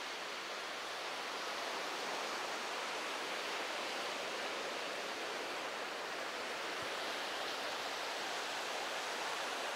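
Steady, even rush of ocean surf breaking on a sandy beach.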